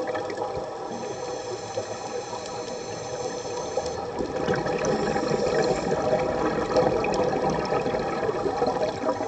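Muffled underwater noise picked up by a camera in a waterproof housing: a steady watery rush that swells a little in the middle, with a faint constant hum of several steady tones underneath.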